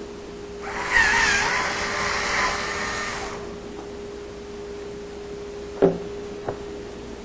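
Cordless power screwdriver whirring for about two and a half seconds, its pitch wavering under load, as it backs out a screw on a dishwasher door side plate; two small clicks follow near the end.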